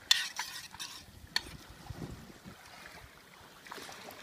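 Spoon stirring and scraping in a metal pot of soup on a camp stove, with sharp clinks, the loudest right at the start and another about a second and a half in.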